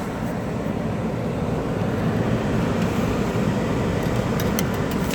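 Forced-air furnace blower running, a steady low rush of air through the ductwork, with a few light clicks near the end.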